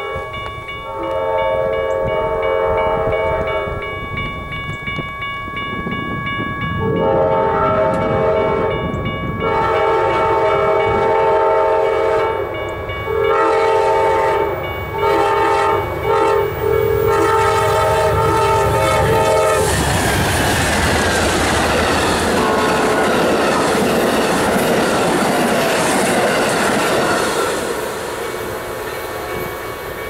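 Amtrak GE P42DC passenger locomotive's air horn blowing about six blasts for a level crossing, most of them long, over the steady ringing of the crossing bell. About two-thirds of the way through, the horn stops and the passenger train passes at speed: a loud rush of wheels on rail with clickety-clack over the joints.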